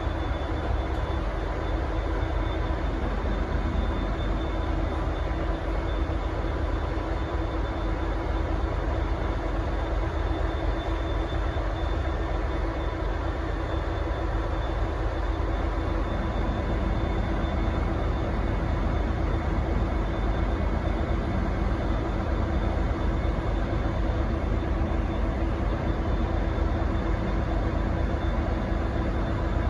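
V/Line N-class diesel-electric locomotive running with a steady low rumble and a constant hum. The sound grows slightly fuller about halfway through.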